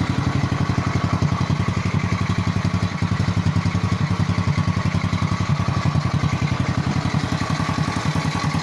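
Newly installed single-cylinder four-stroke engine of a 110cc quad (ATV) idling steadily with an even, rapid putter.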